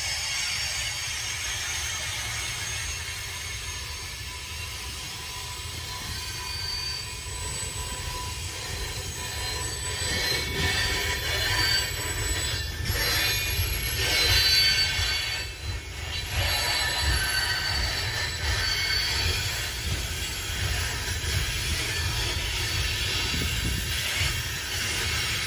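Coal cars of a long freight train rolling past: a steady low rumble of steel wheels on rail, with high-pitched wheel squeals coming and going.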